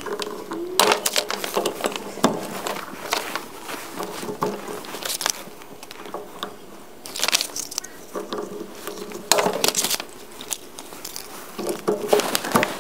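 Hand PEX tubing cutter snipping through plastic PEX pipe, then brass SharkBite push-fit fittings and a valve being handled and pushed onto the pipe: scattered clicks, knocks and scrapes.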